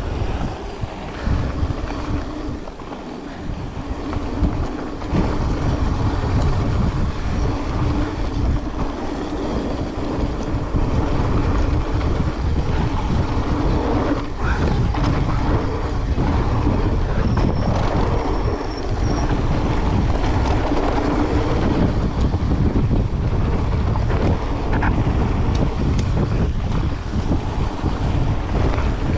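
A mountain bike riding down a gravel and dirt trail: continuous rumble and rattle of tyres and frame, with wind on the microphone.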